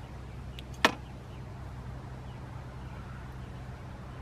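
A steady low mechanical hum, like a motor running, under the faint sound of gloved hands working potting soil, with one sharp click a little under a second in.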